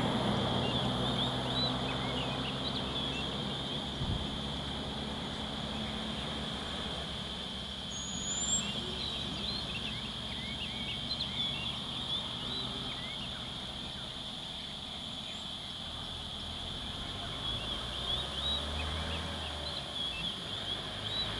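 Birds chirping over a steady high-pitched insect drone. A bus engine idles low underneath, fading over the first few seconds.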